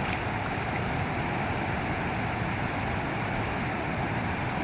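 Floodwater rushing across a road: a steady, unbroken rushing noise.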